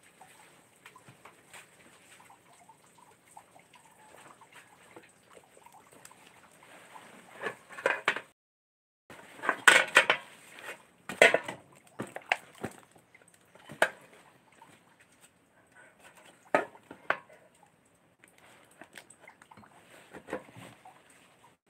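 Handling noises around a washing machine: a plastic laundry-liquid bottle and other items knocked and shuffled, with scattered clicks. The loudest clatter comes about ten seconds in, followed by a few single sharp knocks.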